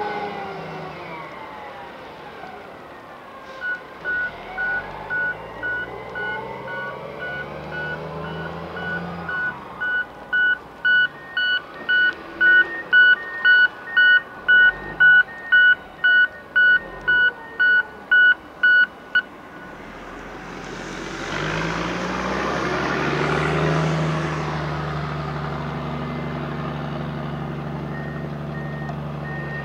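A heavy machine's reversing alarm beeps steadily, a little under two beeps a second, for about fifteen seconds over the drone of diesel engines. It stops, and a louder, rougher surge of machine noise rises about twenty seconds in and settles into a steady diesel drone. Near the end a second, higher-pitched beeper starts up.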